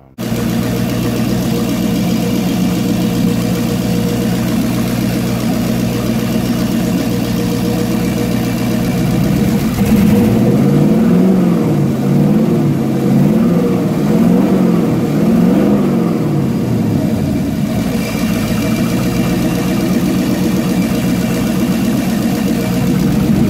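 Car engine, newly got running in a home build, idling steadily; about halfway through it is blipped at the throttle four times in a row, the pitch rising and falling with each, then it settles back to idle.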